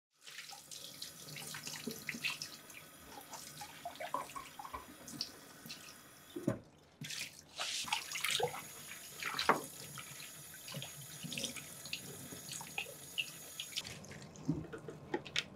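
Kitchen tap running into a stainless steel sink while a wooden bowl is rinsed and rubbed by hand, with small splashes throughout. The water breaks off briefly about six and a half seconds in and stops near the end.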